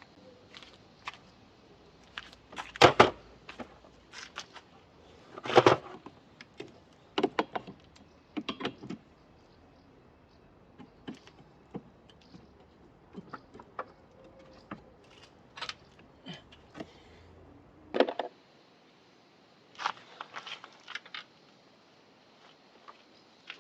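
Scattered metallic clicks, clinks and knocks of hand tools and car parts being handled, with the sharpest ones about three and five and a half seconds in and another near eighteen seconds.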